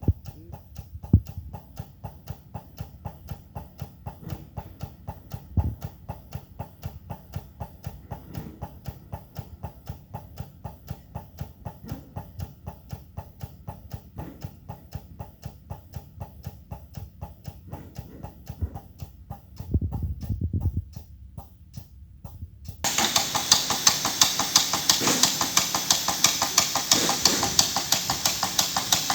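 A small machine running with a rapid, even ticking and a few louder knocks. About 23 seconds in it suddenly becomes much louder and noisier while keeping the same quick pulse.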